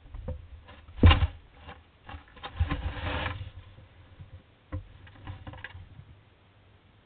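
A cat lunging at a mouse against a wooden hedgehog feeding box: the cat's body and paws bump and scrabble on the wood and the wood-shaving bedding. A hard knock comes about a second in, then a bout of scuffling, then a few lighter knocks.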